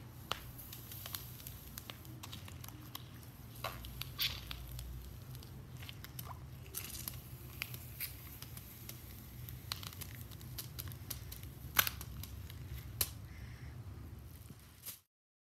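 An apple being crushed in one bare hand: skin squeaking and rubbing under the fingers with scattered small cracking clicks as it gives way. Late on, a loud crack as the apple bursts into two halves, and another sharp crack about a second after.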